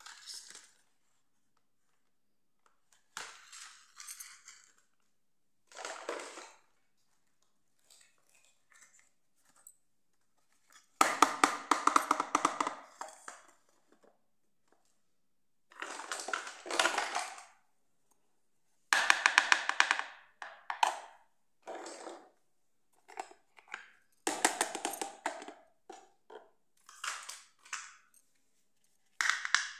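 Hard plastic toy pieces (a folding dollhouse and miniature furniture) being handled and set down on a tile floor: short bursts of clattering and rattling with pauses between.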